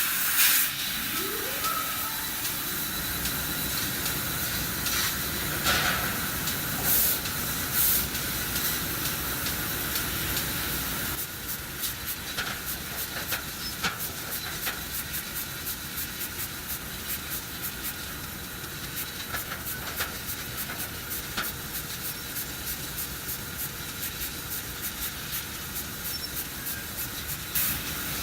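CNC laser cutter cutting thin stainless steel sheet: a steady hiss of assist gas from the cutting head. There is a short rising whine near the start, and from about halfway on a quick run of short ticks over the hiss.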